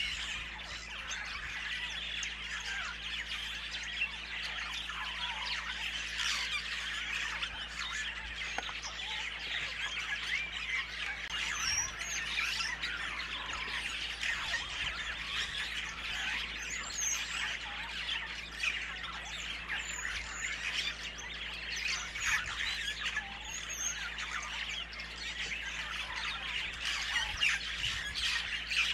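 A dense chorus of birds calling without a break: many overlapping squawks and chirps, with a few higher chirps now and then.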